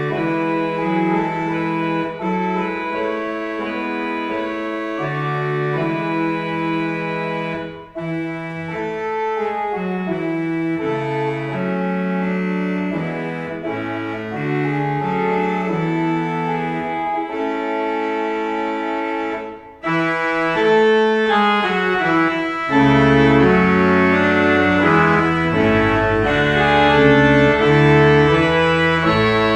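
Church organ playing sustained chords, with brief breaks about 8 and 20 seconds in, then deep pedal bass notes entering and the music growing louder from about 23 seconds in.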